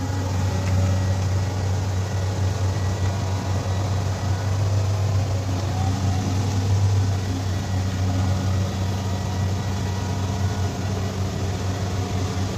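Kubota DC-70 Plus combine harvester running steadily, its diesel engine giving a constant low drone under a haze of mechanical noise, with no change in speed.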